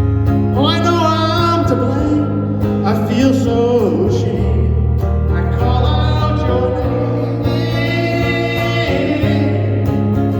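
Live country music: guitar and bass chords under a wavering, bending melody line played or sung in long phrases.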